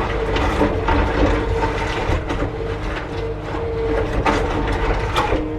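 Kubota SSV75P skid steer's diesel engine running under load, with the hydraulics' whine rising and falling. Its skeleton grapple knocks and scrapes repeatedly as it drags and flattens dirt.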